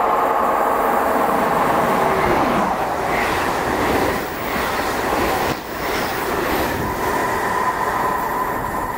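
SJ X2 (X2000) high-speed electric train passing close by at speed: a loud rolling rush with a tone that falls in pitch as the front goes past, then wheels running over the rails with a couple of sharp clacks as the stainless-steel coaches go by.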